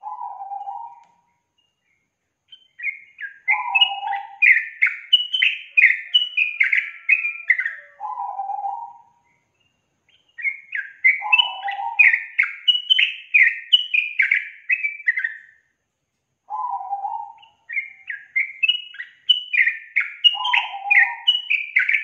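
Yellow-vented bulbul (trucukan) singing: three long bubbly phrases of quick rising and falling whistled notes, separated by pauses, with short lower, husky notes in between.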